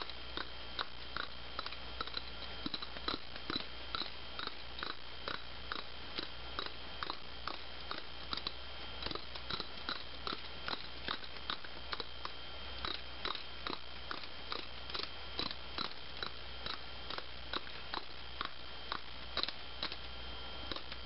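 A 3/8-inch-drive ratchet with a 10 mm socket clicking steadily, about three clicks a second, as it is worked back and forth to run down a water outlet mounting bolt.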